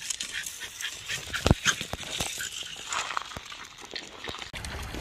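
Staffordshire bull terrier running through dry leaves and brush: rustling and crackling with scattered snaps and footfalls, and one louder thump about a second and a half in. Near the end a steady low rush takes over.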